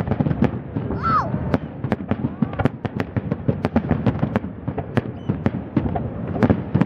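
Distant aerial firework shells bursting over the sea: a rapid, irregular run of sharp bangs, several a second, over a continuous low rumble.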